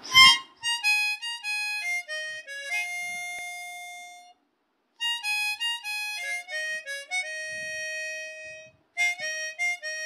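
Background music: a single melody line of clear notes stepping downward in short phrases, breaking off briefly about four seconds in and again near nine seconds. A short low thump comes right as it begins.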